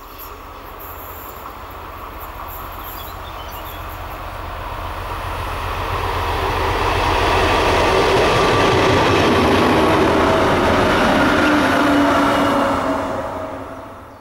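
Class 225 diesel locomotive hauling four towed works shunting locomotives, approaching and passing close by: its engine and the rolling wheels grow louder over about eight seconds, stay loud for a few seconds, then fade away near the end.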